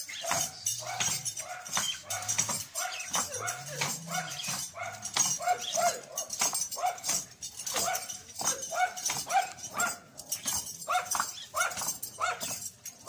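A dog barking loudly and repeatedly, short barks coming about two to three a second, with a brief pause about ten seconds in before the barking resumes.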